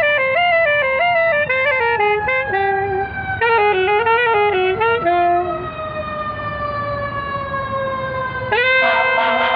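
A fire truck siren wails, its pitch falling slowly as it passes, while a wind instrument plays stepped notes over it and then switches back and forth between two notes in imitation of a French police two-tone siren. The instrument stops about halfway, leaving only the falling siren, and a louder sound with several held tones comes in near the end.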